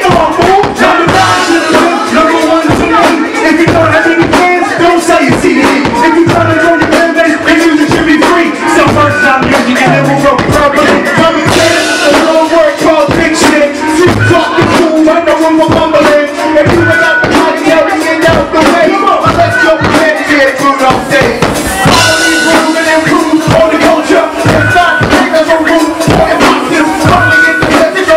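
Hip-hop beat played loud through a club sound system during a live rap show: a steady drum beat under a repeating melodic loop.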